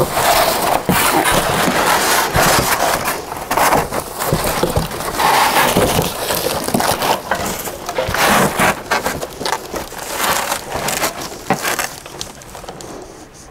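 Cardboard box and plastic packing rustling, crinkling and scraping as a packed stool part is dug out of the box, with many small knocks and crunches. It dies down about a second before the end.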